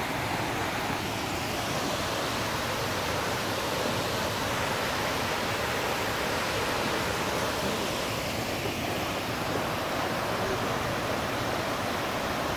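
Munising Falls, a waterfall plunging down a sandstone cliff, making a steady rush of falling water.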